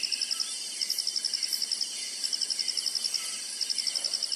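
A chorus of night insects chirping: rapid high pulses in trains about a second long with short breaks, over a steady high-pitched hiss of other insects.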